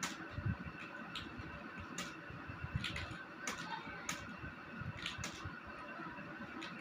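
Computer keyboard keys clicking as someone types, in irregular single keystrokes about one or two a second, over a steady faint background hiss.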